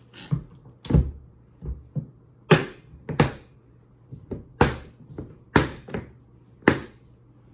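Large polymer hard rifle case being shut: the lid comes down with a thunk about a second in, then its latches are snapped closed one after another in a series of sharp plastic clicks and knocks.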